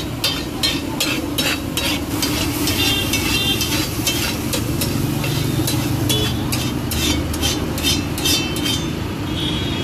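Metal spatula striking and scraping repeatedly on a hot flat iron tawa as egg gotala is chopped and mixed, about two to three strokes a second, over a steady frying sizzle. The strokes stop shortly before the end.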